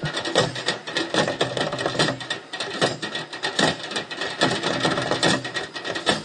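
An ensemble of plastic buckets and drums beaten with sticks, played as junk percussion in a fast, busy rhythm of many overlapping strikes.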